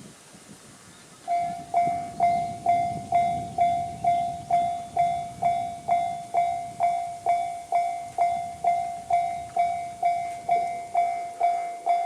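Japanese railway level-crossing alarm sounding the JR standard electronic bell tone. It starts about a second in and repeats a steady ding a little over twice a second, each strike ringing and fading: the crossing has activated for an approaching train.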